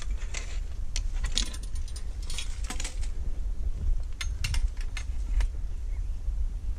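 Light, irregular metallic clicks and rattles of hand-held snake tongs being carried, over a low steady rumble.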